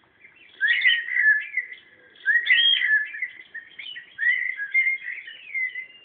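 Cockatiel whistling its song: three runs of gliding, warbling whistles with short pauses between them, the first starting about half a second in.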